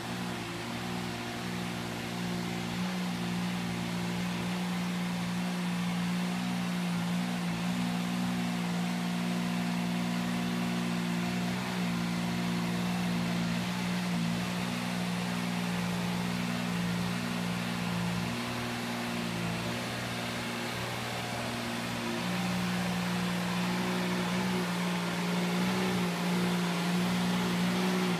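Dingo mini tractor's engine running steadily as its rotavator tills the poultry-house litter of rice hulls and chicken manure. It grows gradually louder as the machine comes closer, and its pitch shifts slightly a few times.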